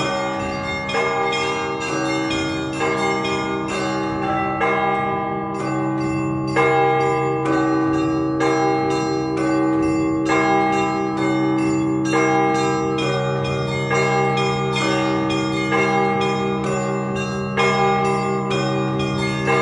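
Russian Orthodox church bells rung as a continuous peal for a service. The deep tones of the large bells hum on underneath while the smaller bells are struck in a quick, ongoing rhythm of several strikes a second.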